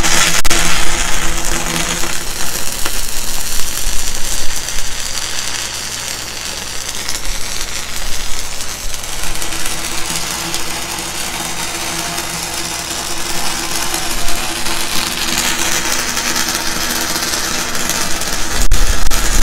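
E6010 stick-welding arc crackling steadily while a full-penetration root bead is run on steel pipe, over a steady low hum. The sound turns louder and heavier about a second before the end.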